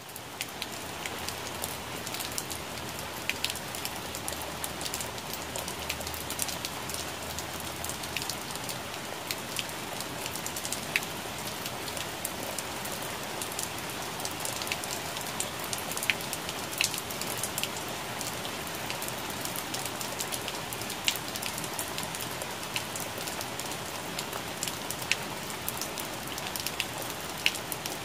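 Steady rain falling on plant leaves: an even hiss with scattered sharper taps of single drops striking the leaves.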